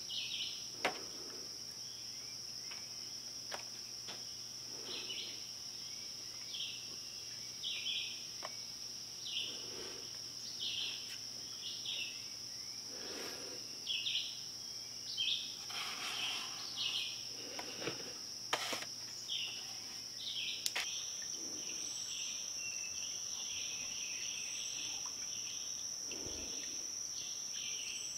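Steady high-pitched insect trill, with short chirps repeating every second or so and a few faint clicks and knocks.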